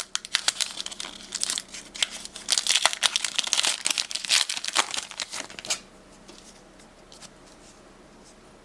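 Foil booster pack wrapper crinkling and being torn open: a dense, irregular crackle that stops about six seconds in.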